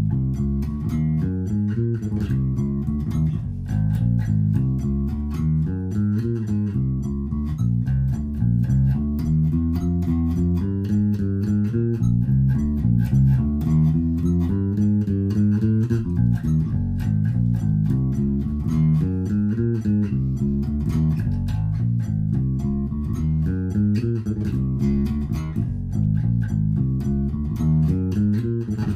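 Electric bass guitar played fingerstyle: an unbroken, busy line of quick low notes that climbs and falls, each note's pluck clicking sharply.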